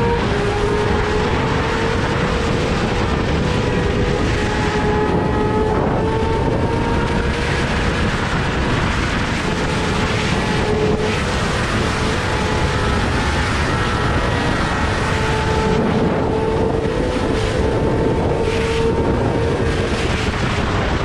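Yamaha R6 inline-four engine with an Akrapovic exhaust, running at fairly steady revs while cruising, its pitch drifting gently up and down, with wind rushing over the microphone.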